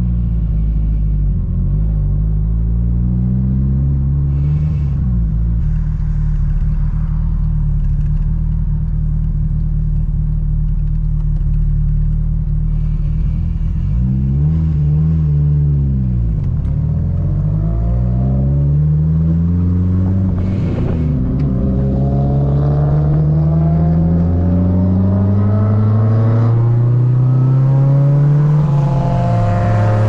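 Turbocharged Mitsubishi Lancer Evolution VIII engine, a modified 4G63 four-cylinder, heard inside the cabin while the car accelerates through the gears. The engine note climbs and drops at each shift, with a long climb late on, and short hisses of air come at some of the throttle lifts.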